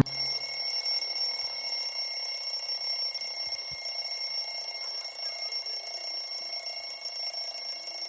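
Alarm clock ringing steadily, a continuous high-pitched ring.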